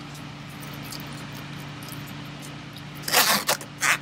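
A zipper on a vinyl soft-top window is pulled partway closed in two quick noisy pulls near the end, over a steady low hum.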